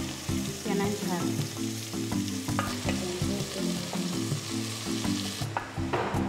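Vegetables sizzling in hot oil in a metal pot on a charcoal stove as sliced tomato, carrot and green pepper go in and are stirred; the sizzle stops about five and a half seconds in. Background music plays throughout.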